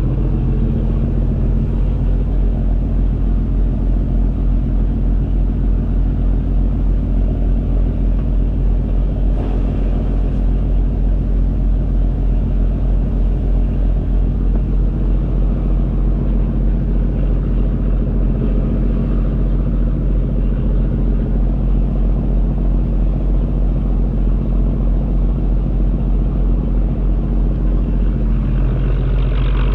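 Boat engine running steadily, a loud low drone with an even, slightly pulsing beat, heard from on board while the boat is under way.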